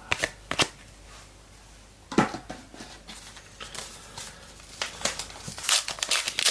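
Trading cards being handled and shuffled, with a few sharp card snaps, then the crinkling of a foil card-pack wrapper building up near the end.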